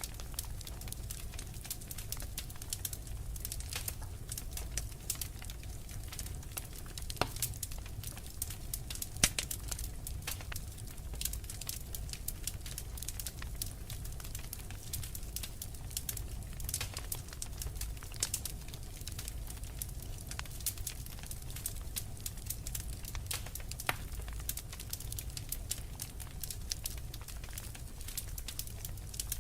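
Wood fire crackling steadily over a low rumble, with irregular sharp pops, the loudest about nine seconds in.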